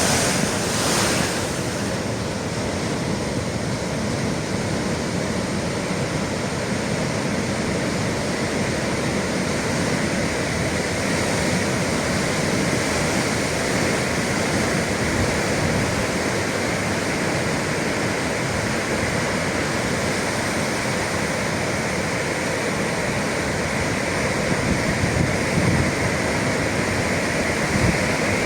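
Atlantic sea waves breaking steadily on the shore, a continuous surf wash, with some wind on the microphone.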